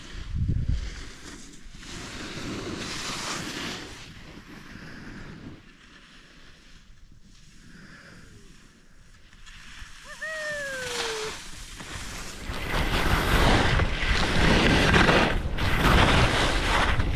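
Skis scraping and carving over packed snow, with wind buffeting the microphone, in swells that grow loudest over the last few seconds as speed builds.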